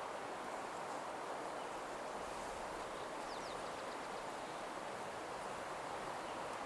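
Steady soft rushing noise of an ambient nature soundscape, with a faint bird giving a few quick high chirps about three and a half seconds in.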